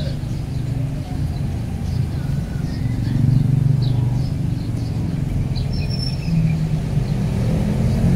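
Steady low rumble that swells a little partway through, with faint short high chirps scattered over it.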